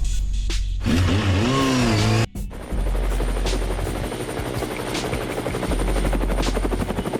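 Background music: a wavering, gliding melody for the first couple of seconds, a sudden break, then a fast, dense rattling beat over a steady low bass.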